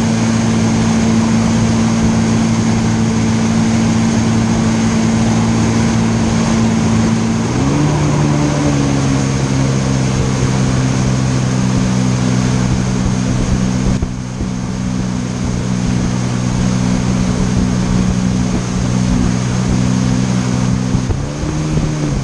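Jet ski engine running steadily at speed while towing a biscuit tube, over the rush of water and spray in its wake. The engine pitch rises briefly and settles about a third of the way in, and again near the end.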